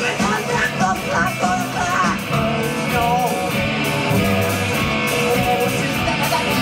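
Rock band playing live: electric guitars, drums and keyboard.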